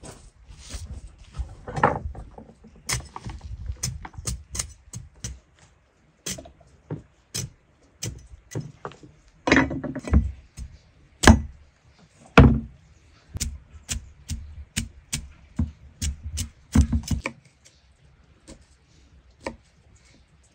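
Irregular knocks and clicks, coming in quick runs, with a few louder knocks about halfway through, thinning to a few faint ticks near the end.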